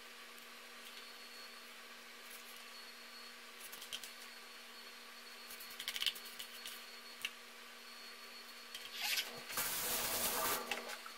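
A metal spoon clicking and scraping now and then against a ceramic baking dish and a ricotta tub while cheese is dolloped, over a low steady hum. Near the end, a louder scraping, rustling handling noise for about a second and a half.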